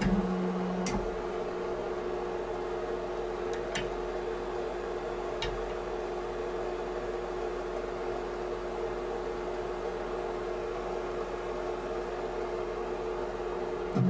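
Hydraulic press power unit running with a steady hum, while a few light clicks come from the metal crimp tool being handled on the press plate.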